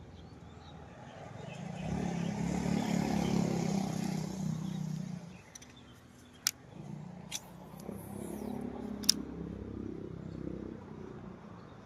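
Motor vehicles passing twice, each engine sound swelling and then fading over a few seconds, with three sharp clicks between and during the passes.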